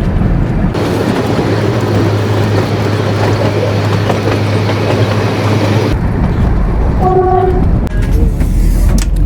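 Kalka–Shimla narrow-gauge toy train running, heard from on board as a loud, steady running noise that changes in character for several seconds in the middle. A short horn toot sounds about seven seconds in.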